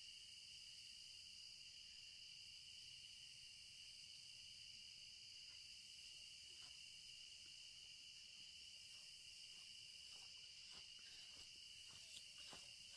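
Faint, steady high-pitched drone of an evening insect chorus. In the last few seconds, soft footsteps in grass come closer.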